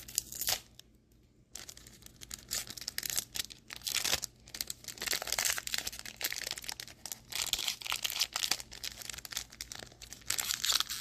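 Foil booster-pack wrapper of Pokémon cards being torn open and crinkled by hand: a dense, irregular crackle of tearing and rustling that starts about a second and a half in after a brief lull.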